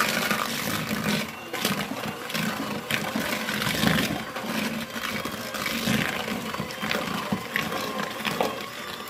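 KitchenAid electric hand mixer running, its beaters churning thick cream cheese and sugar in a plastic bowl, with a few sharp knocks.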